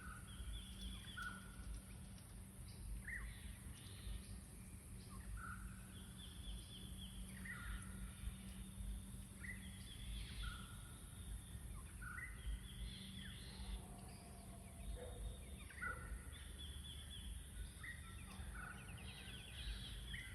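Birds singing, short whistled phrases and quick trills repeating every couple of seconds, over a faint steady low hum and a constant high hiss.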